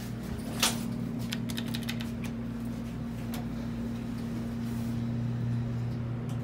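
Steady hum of a 1950s Dover hydraulic elevator's pump motor running, with one sharp knock about half a second in and a few faint clicks over the next few seconds.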